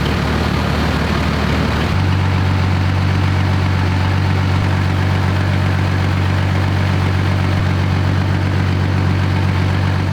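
BMP-1's UTD-20 V6 diesel engine idling steadily, its note settling into an even, low hum about two seconds in.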